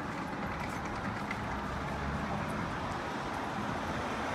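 Steady street traffic noise, vehicles running by with a low rumble.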